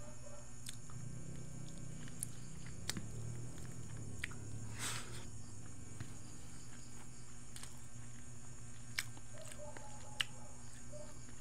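A man chewing a mouthful of fried dried fish and rice, with a few faint wet clicks and smacks of the mouth. Under it runs a steady low hum and a high hiss.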